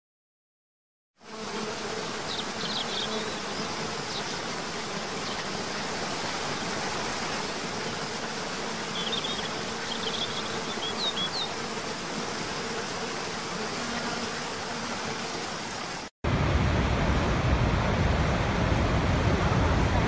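After about a second of silence, the steady rush of a forest waterfall cascade, with a few short bird chirps. About sixteen seconds in, it cuts to the louder, deeper rush of a huge waterfall, Niagara's Horseshoe Falls.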